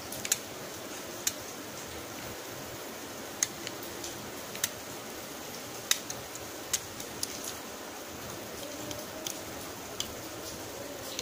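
Drill bit of a hand-twisted homemade drill cutting into the metal rivet of a diecast Hot Wheels car: irregular sharp ticks and clicks, about a dozen, over a steady hiss.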